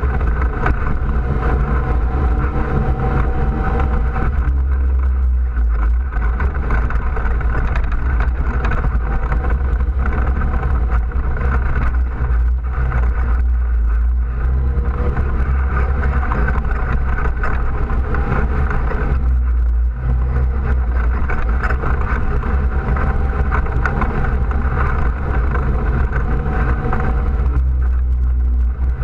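ATV engine running steadily under way along a dirt trail, heard from on board the machine.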